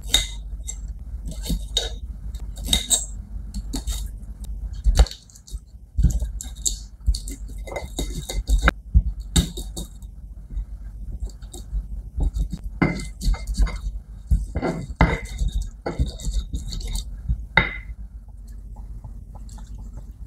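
Knife blade clicking against a stone mortar as shallots and chillies are sliced on it, then a stone pestle knocking and grinding on the mortar: irregular sharp clicks and knocks.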